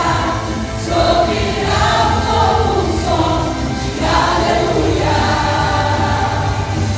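Choir singing a gospel song over instrumental backing with a steady bass line.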